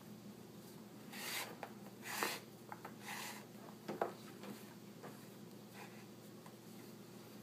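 Rawhide lace being drawn through the finger holes of a leather baseball glove, with a lacing needle: three rasping swishes about a second apart in the first half, then a sharper click about four seconds in, with small ticks of handling.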